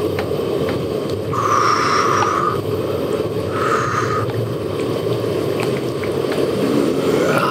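Broth simmering with a steady bubbling in a charcoal chimney hot pot, with small clicks. Two short steady tones sound over it, the first lasting about a second, the second shorter.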